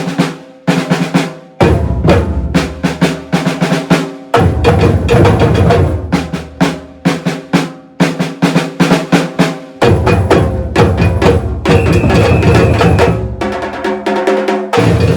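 Batucada drum ensemble playing together, with deep bass drums under rattling snare drums, in a driving rhythm broken by several sudden short stops before the group comes back in.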